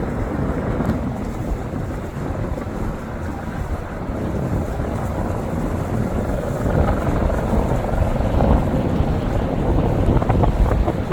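Wind buffeting the microphone: a loud, steady, low rumble that swells a little in the second half.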